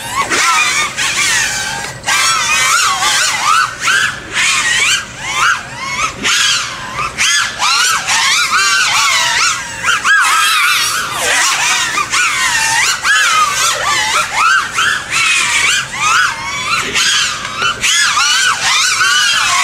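FPV racing quadcopter's brushless motors whining in flight, the pitch sliding up and down rapidly with each throttle punch and turn, with a slight whistle. The motors sound crisp, with no oscillation from the freshly tuned gyro filters.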